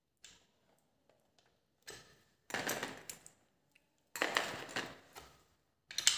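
Small metal parts of a Havells ceiling fan's downrod mounting, the clip and nut-bolt, handled and fitted by hand. The light clinks and scraping handling noise come in a few short spells.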